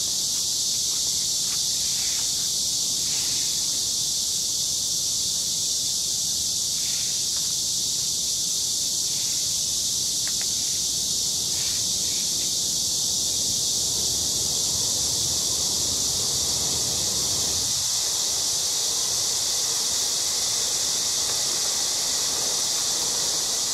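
A steady high-pitched chorus of insects, unbroken throughout, with a few faint clicks in the first half.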